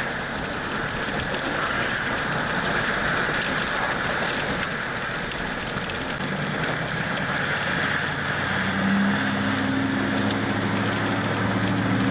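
A dense, steady hiss of hail and rain falling. From about six seconds in, the low, even hum of a pickup truck's engine joins as the truck drives slowly past.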